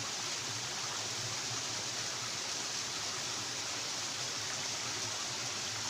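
Stream water rushing steadily, an even hiss without breaks.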